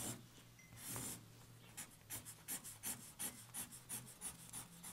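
Marker pen drawing on a large sheet of paper, faint. Two longer strokes, then from about two seconds in a quick run of short hatching strokes, about five a second.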